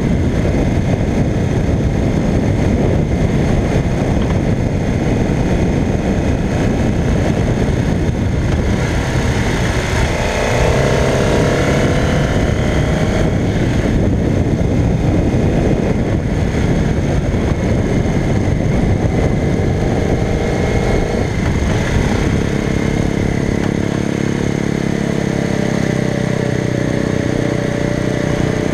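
1985 Honda CBX 750P's inline-four engine running at road speed under heavy wind rush on the microphone. The engine note rises in pitch as the bike accelerates, about ten seconds in and again near the end.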